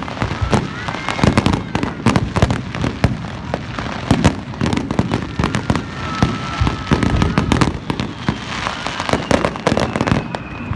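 Fireworks bursting in rapid succession, a dense run of bangs and crackles.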